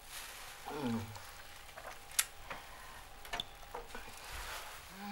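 Bath foam crackling and fizzing as the bubbles pop, with a few sharp light clicks. About a second in, a woman gives a short sigh or hum that falls in pitch.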